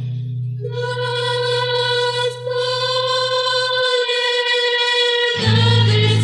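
Rondalla music, a Christian vocal and guitar ensemble: the singing holds one long note over a low bass note that drops out partway. Near the end the bass and voices move together to a new chord.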